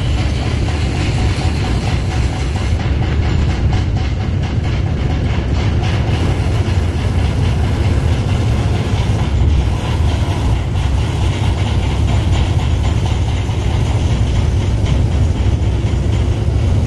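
Steady, loud low engine rumble with a rushing hiss over it.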